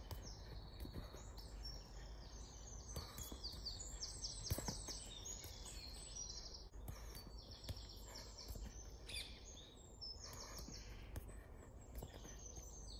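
Small birds chirping and trilling over a steady low outdoor rumble, with a few short knocks of a football being worked with the foot; the loudest knock comes about four and a half seconds in.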